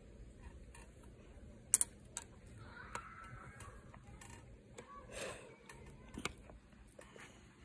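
Faint, scattered metallic clicks of a 12 mm wrench turning and being refitted on a bicycle stem's top bolt as it is tightened, the sharpest click a little under two seconds in.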